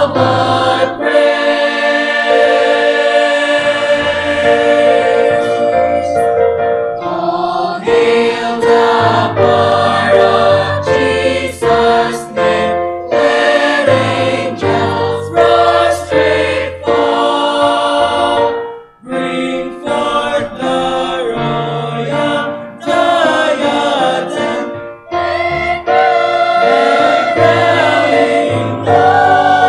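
Mixed church choir of men and women singing a gospel hymn arrangement in full chords, with short breaks between phrases.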